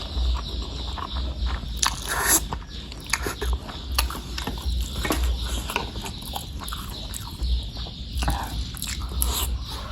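Close-miked chewing and mouth smacking of a person eating spicy bakso meatballs and noodles: a run of short, irregular wet clicks and smacks.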